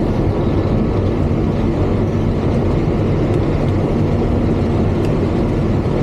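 Claas Lexion 8800 combine harvester running steadily while harvesting corn: a loud, even drone of engine and threshing machinery that does not rise or fall.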